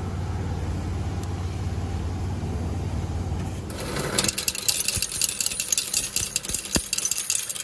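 A steady low machine hum, then about four seconds in a rapid metallic clatter and clinking as a change machine pays out quarters into its steel coin tray.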